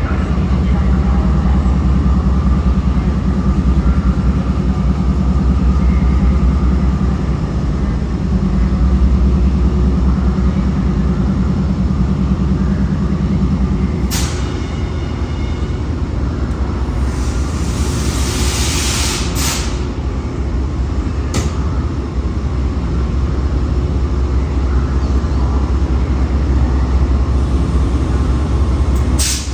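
GE P42DC locomotive's 16-cylinder diesel engine running with a steady low drone whose note changes abruptly about halfway through. A burst of air hissing lasts a couple of seconds, and a few sharp clicks stand out.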